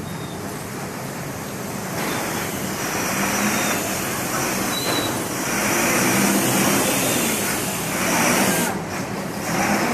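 Road traffic noise from vehicles passing on a busy road, swelling a couple of times as they go by; no horn sounds.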